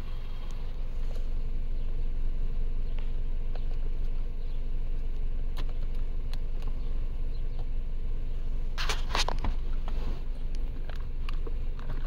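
Car engine idling with a steady low hum. About nine seconds in come clicks and rustling as a plug and cable are handled at a power inverter, with a few more clicks near the end.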